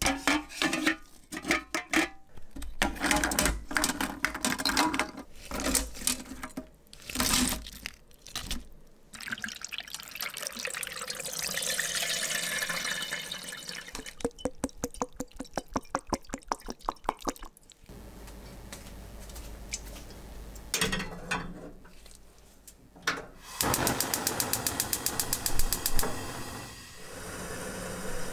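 Kitchen sounds of shellfish being steamed in a stainless steel pot: hard shells knock and clatter against the metal many times, then comes water pouring. Near the end there is a fast run of even clicks followed by a steady hiss.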